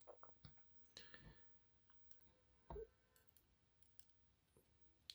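Faint, scattered clicks and taps of small metal lock parts being handled, the loudest a little under three seconds in, as the sidebar and sliders of a disassembled EVVA 3KS cylinder are taken out and turned over.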